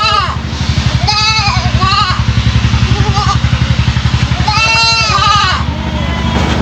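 A three-month-old goat kid bleating in its unusual, strange-sounding voice: about five short calls that rise and fall in pitch, the last and longest about four and a half seconds in. A steady low throb runs underneath.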